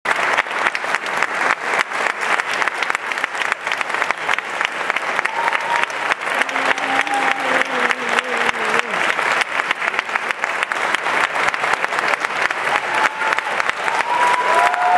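Concert-hall audience applauding steadily as a choir takes the stage, with a few voices calling out about halfway through and again near the end.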